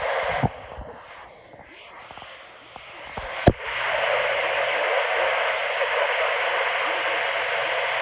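Static hiss from a Midland GXT two-way radio's speaker on a weather channel, with two sharp clicks about half a second in and about three and a half seconds in; after the second click the hiss turns loud and steady.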